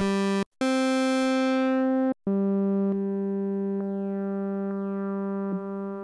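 Korg PS-3300 FS analog polyphonic synthesizer sounding a held note with many overtones. It cuts off and comes back twice in the first two seconds, then its tone turns steadily darker as its brightness fades.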